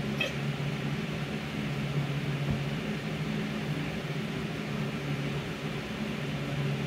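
Steady machine hum with a low drone and an even layer of hiss, like a fan running in the room.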